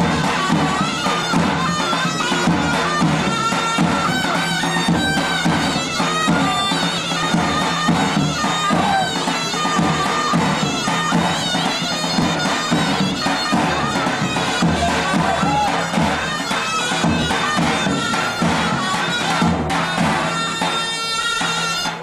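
Loud traditional folk dance music on a bagpipe-type reed instrument, a reedy melody over a steady drone. It cuts off right at the end.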